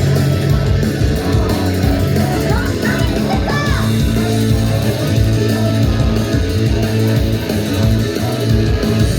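Loud heavy rock music with distorted electric guitar and a heavy, pounding bass line, played over a concert venue's sound system.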